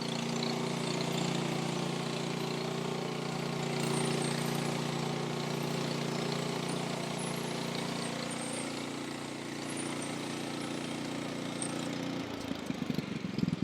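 Norwood portable sawmill's gas engine running steadily. About twelve seconds in, the steady note breaks up into a fast pulsing as the engine slows.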